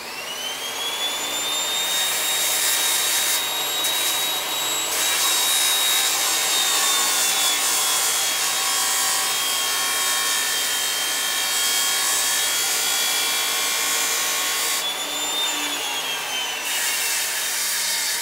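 Electric bench grinder spinning up with a sharply rising whine and then running steadily, while a steel tool is held to the wheel in several passes, giving a harsh grinding rasp with short breaks between passes.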